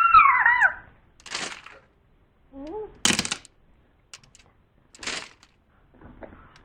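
A child's short high-pitched squeal, then slime being squeezed and worked by hand, making short wet squelching pops about every two seconds.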